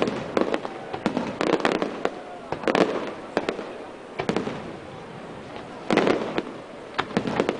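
Fireworks display: aerial shells bursting in clusters of sharp bangs, a new cluster every second or so, with a brief lull in the middle.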